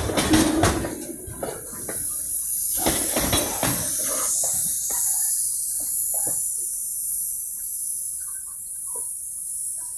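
Freight train passing: wheels knock over rail joints in the first second and again about three seconds in, under a steady high-pitched hiss.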